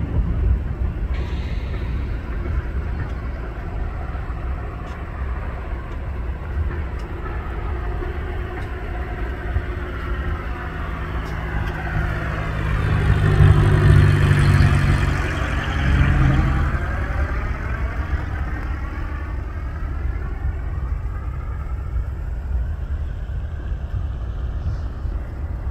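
Cessna 172N's four-cylinder Lycoming piston engine and propeller droning as the plane flies overhead. It grows louder to a peak a little past halfway, then fades as the plane moves away.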